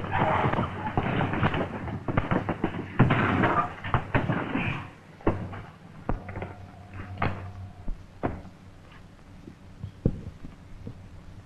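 A scuffle between two men: a dense rush of rustling and knocks for about five seconds, then a few scattered knocks and clicks.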